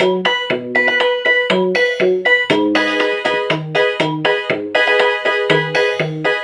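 Casio HT-3000 synthesizer keyboard playing a rhythmic pattern of bass notes and chords through its Casio Chord auto-accompaniment; the chord changes about two and a half seconds in.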